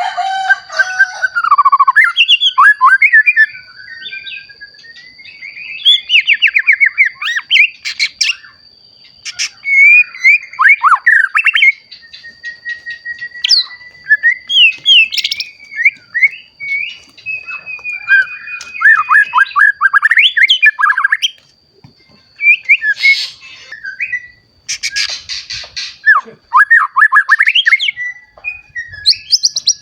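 White-rumped shama (murai batu), a young bird newly in adult plumage, singing loudly. Its varied song comes in phrases of fast trilled notes and gliding whistles with short pauses between them, and a few harsh, rasping notes come past the middle. A faint steady high tone runs underneath.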